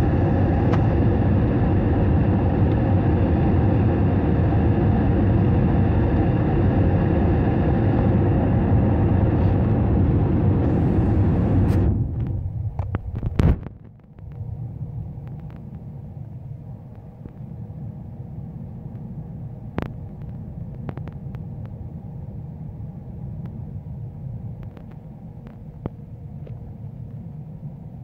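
Airbus A321 cabin noise on descent: a loud, steady drone of engines and airflow with several humming tones. About twelve seconds in it drops abruptly to a much quieter low rumble, with a sharp knock just after and a few faint clicks later.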